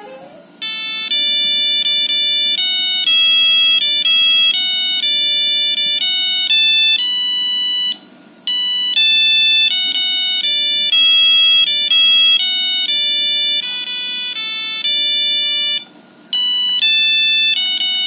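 Nokia 5210 playing one of its built-in monophonic ringtones through its speaker: a quick beeping tune, one note at a time. It starts under a second in and breaks off briefly about eight seconds in and again near sixteen seconds, each time starting the tune over.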